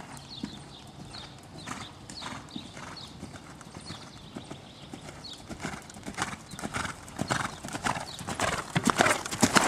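Horse cantering on sand arena footing, a steady rhythm of hoofbeats that grow louder over the last couple of seconds as the horse comes closer.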